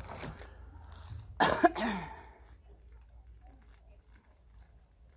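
A person coughing once, about a second and a half in.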